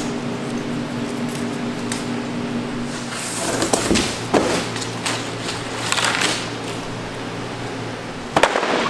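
Cut plastic shipping strapping and a cardboard crate being handled, with crinkling and rustling strokes in the middle, over a steady hum that stops with a knock near the end.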